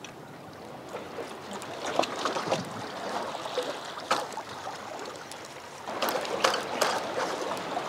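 Seawater washing and trickling among jetty rocks, with scattered clicks and knocks through it.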